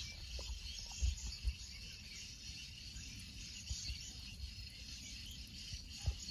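Steady chirring of insects in a rice paddy, with a few soft low thumps about a second in, at a second and a half, and again near the end.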